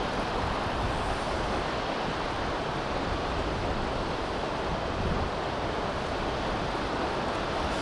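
Steady rush of a large waterfall, the Akiu Great Falls, pouring into its plunge pool.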